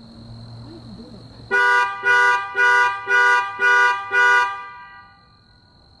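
Car alarm sounding through the car's horn: six quick, even honks at about two a second, then it stops.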